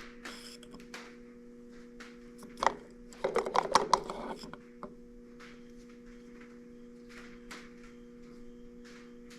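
Light clicks and knocks from handling on a workbench, bunched together about three seconds in, over a steady low hum.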